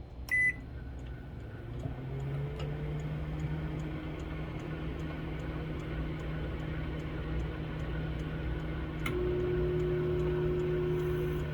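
Microwave oven beeps once as its buttons are pressed, then starts up and runs with a steady hum while heating food. About nine seconds in there is a click and the hum takes on a stronger, higher tone.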